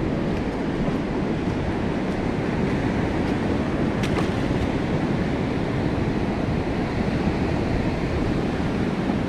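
Wind buffeting the microphone in a steady low rumble, over the continuous rush of ocean surf.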